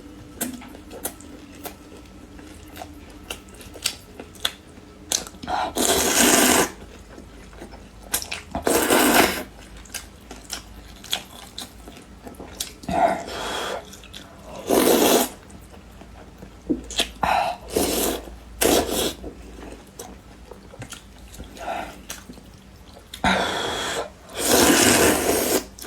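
Close-miked eating of spicy noodles and fried food: a steady run of small wet chewing clicks, broken by about seven loud noisy bursts, each lasting from half a second to two seconds, of slurping and biting.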